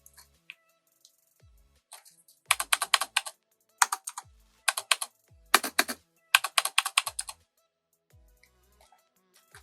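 Typing on a mechanical keyboard fitted with Razer PBT keycaps: about five quick runs of sharp key clicks, starting a couple of seconds in and stopping a little over seven seconds in.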